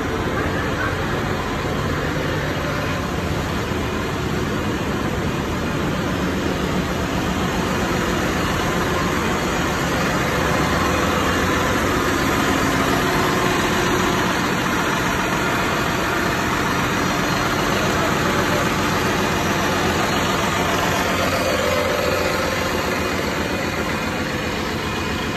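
Ship's engine-room machinery running: Yanmar diesel engine sets and auxiliaries giving a steady, unbroken mechanical drone.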